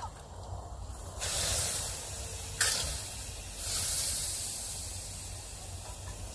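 Water splashed onto a hot wood-burning stove, sizzling into steam: three hissing bursts about a second apart, the second starting sharply and loudest, the last dying away slowly.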